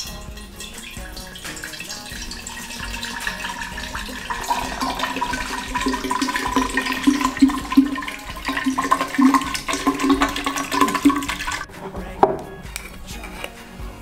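Apple juice poured from a glass bottle into a glass pitcher: a steady splashing pour that grows louder partway through and cuts off suddenly near the end, followed by a single knock.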